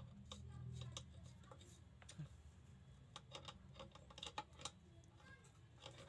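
Faint, scattered metal clicks of hand tools on the pinion end of a car steering rack, as locking pliers clamped on the pinion shaft turn it while the rack adjustment is set, over a low steady hum.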